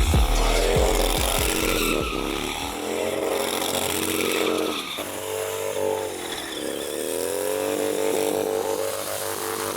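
Harley-Davidson motorcycle V-twin engine running at high revs, its pitch dropping and climbing back a few times as the throttle is worked.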